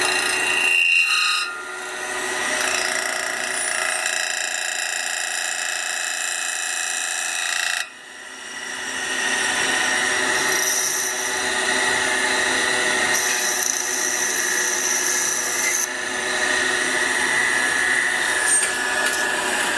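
Metal lathe turning a thin sheet-metal cup while a carbide cutting tool trims and bores it: a steady machining whine over scraping noise. The sound changes abruptly a few times.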